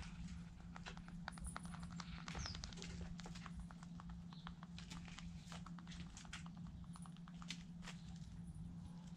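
Chickens pecking at scattered grain: quick, irregular beak taps and scratches, over a steady low hum. A faint short chirp comes about two and a half seconds in.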